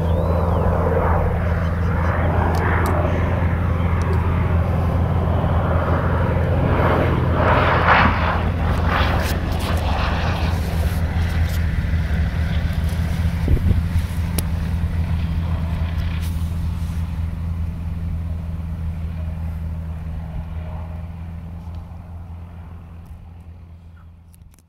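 Nanchang CJ-6 trainer's nine-cylinder radial engine and propeller droning at low power on its landing approach, a steady low drone that swells briefly about eight seconds in and fades away over the last several seconds.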